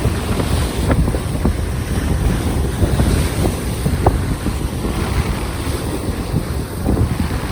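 Strong, gusty wind buffeting the microphone with a low rumble, over the wash of the sea.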